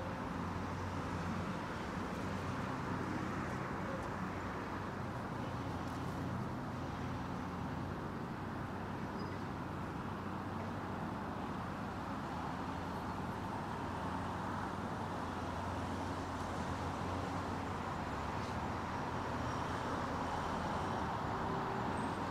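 Steady city street traffic: cars running along the road with an even rumble of tyres and a low engine hum.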